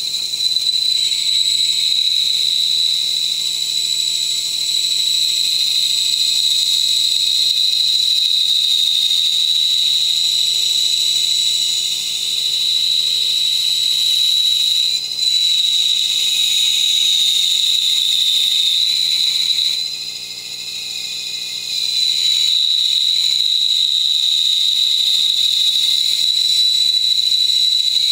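Bandsaw resawing a strip of 2x12 lumber into thin planking stock: a steady high whine with a hiss over it, which eases off for about two seconds about two-thirds of the way through.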